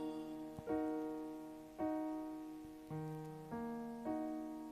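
Backing music of soft keyboard chords, a new chord struck about once a second and fading away before the next.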